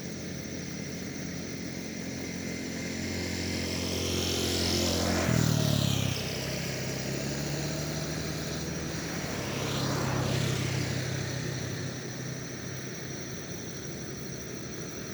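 Motor vehicles passing one after another over a steady low engine hum. The first pass-by is the loudest, about five seconds in, and its engine note drops in pitch as it goes by. A second, softer pass-by comes about ten seconds in.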